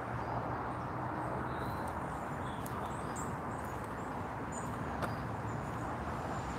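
A few faint bird chirps over a steady rushing outdoor background noise, with a single small click about five seconds in.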